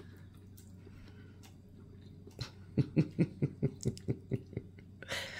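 A man eating spaghetti: a quick run of about ten short, rhythmic mouth sounds as he sucks in and chews a mouthful of noodles, then a longer hissing slurp or intake of breath near the end.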